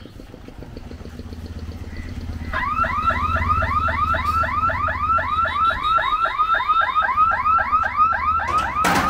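Level-crossing warning siren sounding as the boom barriers come down: an electronic warble of repeated sweeping whoops, about three or four a second, starting a couple of seconds in. A metallic clatter comes near the end.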